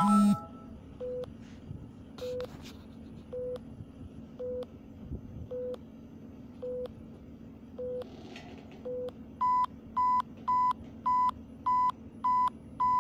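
Satellite-finder phone app's guidance beeps: a short low beep about once a second, then from about nine and a half seconds in a louder, higher beep repeating nearly twice as fast, signalling that the dish has been turned into line with the satellite's direction.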